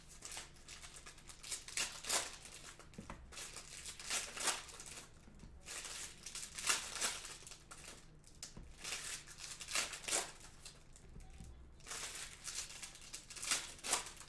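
Foil wrappers of 2020 Select NFL trading-card packs being torn open and crumpled by hand. The crinkling comes in repeated bursts every couple of seconds, one pack after another.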